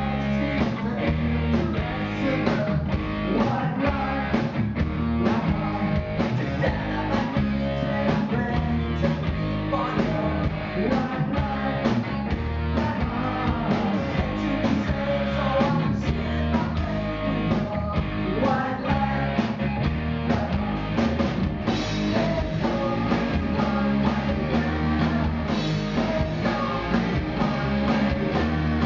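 Rock band playing live: electric guitars, bass and drum kit with a steady beat, and a man singing lead into the microphone.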